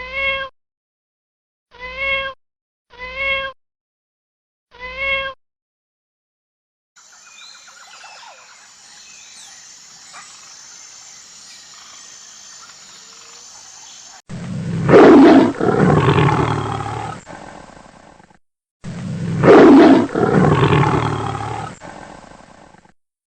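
Animal calls: four short, even-pitched calls in the first five seconds, a faint background hiss, then two long, loud calls near the end.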